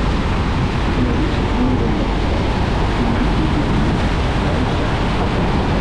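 Loud, steady roar of Niagara Falls close up: water pounding onto the boulders at its base and churning spray, an unbroken low rushing noise.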